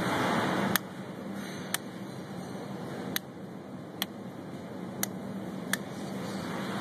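Six sharp, isolated clicks of a hand tool on the plastic crankcase vent valve cover and fittings of a BMW N62 V8, over a steady background hum that drops in level about a second in.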